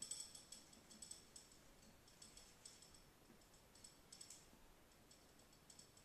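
Faint, irregular light clicks and ticks from a hanging oil lamp and its metal fittings being handled as it is lit, growing sparser toward the end.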